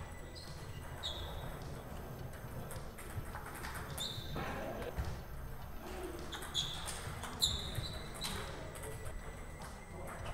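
Table tennis ball clicking off rackets and the table in rallies: a series of sharp, irregularly spaced ticks, several with a short high ring, over a low steady hall hum.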